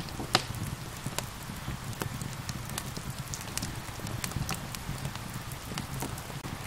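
Wood fire crackling with irregular sharp pops, one louder pop just after the start, over a steady hiss of gentle rain.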